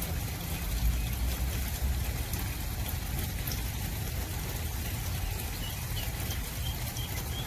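Water trickling steadily in the duck pond, with a few faint high duckling peeps near the end.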